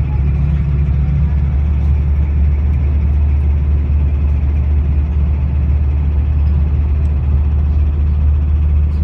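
Steady, loud low engine drone and road noise heard from inside a moving vehicle's cabin.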